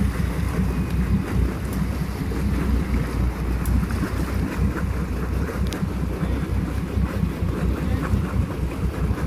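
Low, fluctuating rumble of wind buffeting the microphone, mixed with the sportfishing boat's engines idling at the dock.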